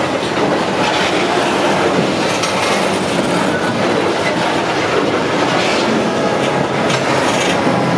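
Covered grain hopper wagons of a freight train rolling past close by: a loud, steady rumble and clatter of steel wheels on the rails.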